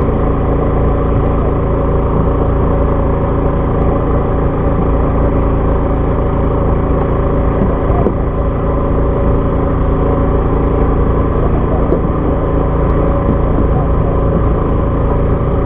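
A fishing boat's engine running steadily: a loud, even drone with a low hum that does not change.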